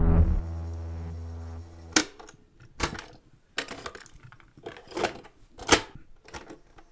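Synth music dies away, followed by a handful of separate sharp mechanical clicks and clacks at uneven intervals, about six in all.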